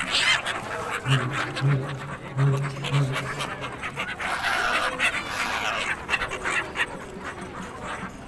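A flock of gulls calling over the river, many short overlapping cries, with people chattering among them.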